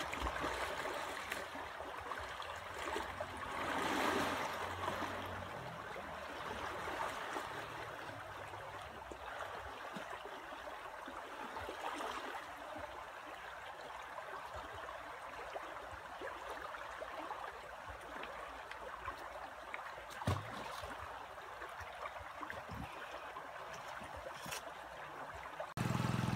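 Shallow river running over stones: a steady gurgling rush of water that swells briefly about four seconds in, with a soft thump about twenty seconds in.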